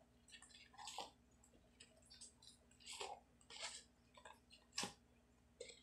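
Faint, scattered squishes and crackles of clear-glue slime being kneaded by hand in a plastic bowl, about five short bursts.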